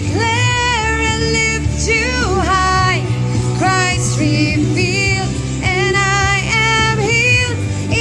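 Music: a woman singing a song with held, sliding notes over a steady low backing.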